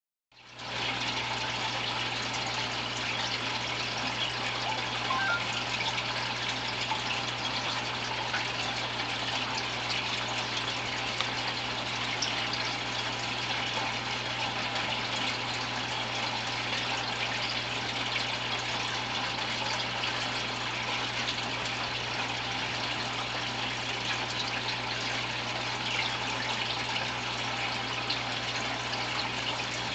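Aquarium filter running: a steady trickle of water with a constant low pump hum.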